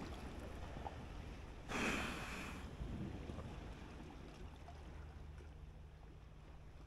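Small sea waves lapping against granite shore rocks, with one louder wash of water about two seconds in. A low steady hum sits underneath for the second half.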